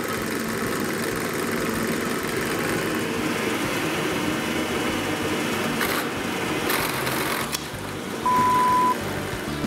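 Bench drill press running with vacuum dust extraction at the bit: a steady motor and rushing-air noise, with short harsher bursts about six to seven and a half seconds in as the workpiece is worked under the bit. Near the end a loud steady beep sounds for about half a second.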